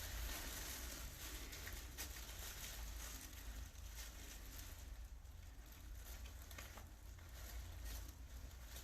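Faint crackling radio static from a spirit box (SB7) sweeping through radio stations, over a steady low hum.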